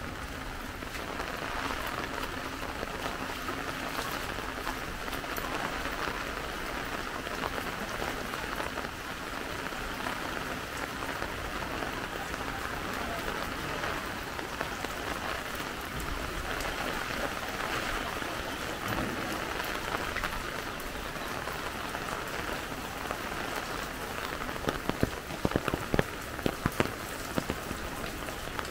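Heavy rain falling steadily, with a run of sharp taps in the last few seconds.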